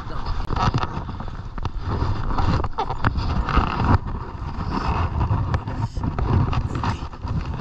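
Wind buffeting the microphone in gusts, with rustling and a few sharp clicks mixed in.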